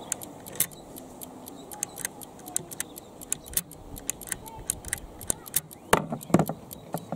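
Clockwork escapement of an old AEG electromechanical time switch ticking rapidly and evenly, about five ticks a second. Two heavier knocks come near the end.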